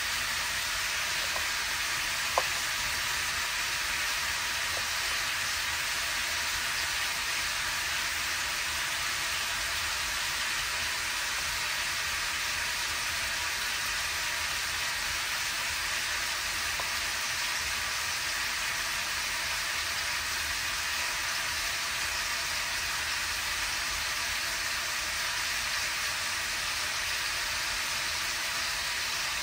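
Bacon-wrapped mini sausages sizzling steadily in a pan as they cook, with one sharp click a little over two seconds in.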